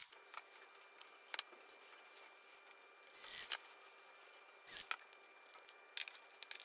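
Light clicks and knocks of wooden CNC parts and small metal hardware being handled and set down on a table, with two short scraping rustles near the middle, over a faint steady hum.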